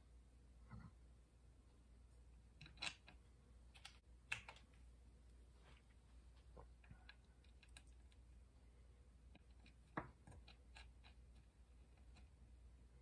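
Near silence with a few faint, scattered clicks of small metal hardware being handled: a button-head socket bolt and T-nut screwed together by hand and fitted into the end of a rail.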